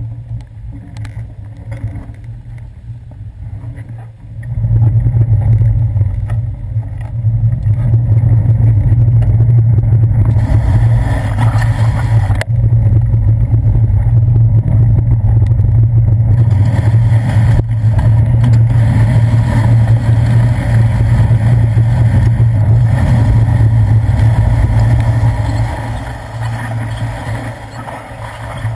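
Low, steady rumble of a bicycle being ridden on wet city streets, heard through a handlebar-mounted camera: wind and road vibration on the mount. It starts about four seconds in as the bike gets moving and eases off near the end as it slows.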